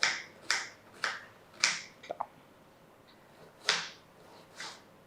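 Kitchen knife chopping an onion into small pieces: four sharp strokes about half a second apart, a couple of faint clicks, then two more strokes after a pause.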